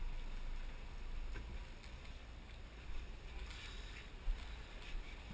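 Sportfishing boat underway: a steady low engine drone under a rushing hiss of wind and wake water, with a few faint knocks.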